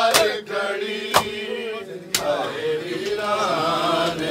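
Men chanting a Punjabi mourning lament (nauha) together, with sharp chest-beating slaps of matam landing about once a second, three of them in the first half.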